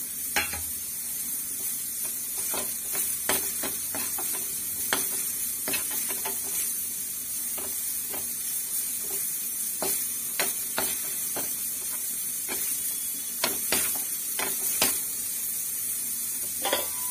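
Onion, tomato and freshly added ground spices sizzling in a hot frying pan, being fried into a masala. A steel spoon stirs and scrapes through the mixture, clinking irregularly against the pan over the steady sizzle.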